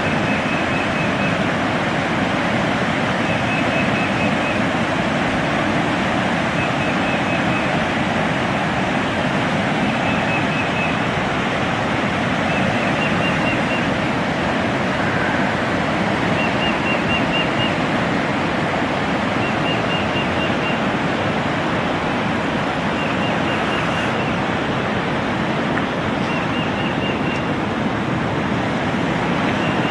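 Floodwater rushing through the rapids of a swollen river: a steady, unbroken wash of water noise.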